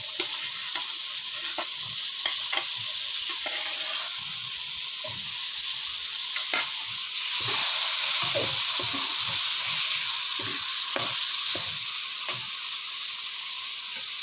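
Boiled chickpeas and masala sizzling in hot ghee in a karahi while being stir-fried (bhuna) with a metal slotted spoon, which scrapes and clicks against the pan again and again. The sizzle grows a little louder about halfway through.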